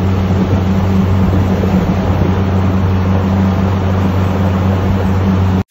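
A motorboat's engine running at a steady low hum under the rush of water churning in its wake and wind on the microphone; it all cuts off suddenly near the end.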